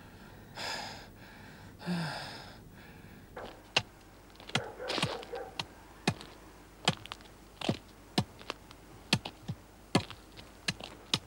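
A blind man's walking stick tapping on the ground, sharp separate taps about one to two a second, starting a few seconds in. Before that, two laboured gasping breaths from a feverish man in bed.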